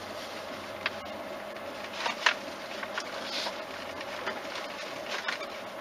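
Inside a vehicle driving slowly over grass: a steady hum with scattered light clicks and rattles, the sharpest a bit over two seconds in.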